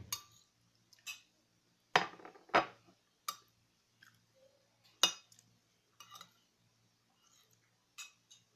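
Metal spoon clinking against a plate during eating: several separate sharp clinks with quiet between, the loudest about two and five seconds in.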